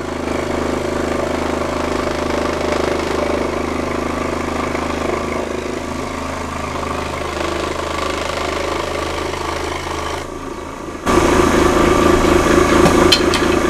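Electric scroll saw running and cutting a wood panel, a steady motor-driven buzz of the reciprocating blade that dips briefly about ten seconds in and then comes back louder.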